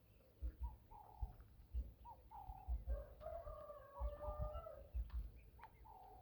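Birds calling: short pitched notes repeated every half second or so, with a longer drawn-out call a little after the middle, over irregular dull low thumps.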